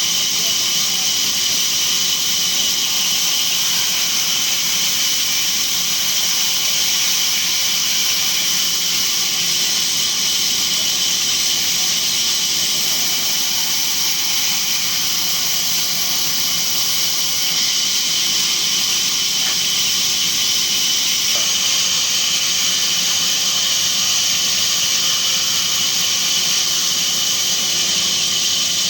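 Band sawmill running, a steady high-pitched hiss with a thin continuous whine that holds unchanged throughout.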